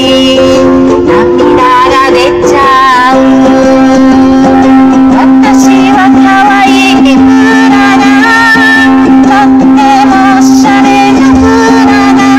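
Amplified Hawaiian-style song: a woman singing over ukulele accompaniment, the melody wavering and gliding over steady held notes.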